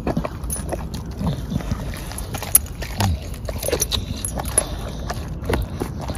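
A dog chewing on a raw black chicken carcass: irregular wet crunches and sharp cracks as its teeth work through the bones.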